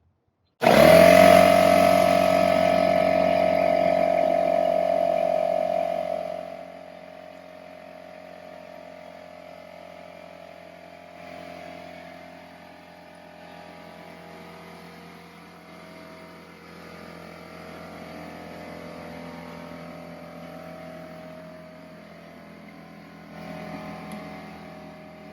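Electric air compressor running with a steady hum and whine. It starts abruptly and loud, then drops much quieter about six seconds in and runs on steadily.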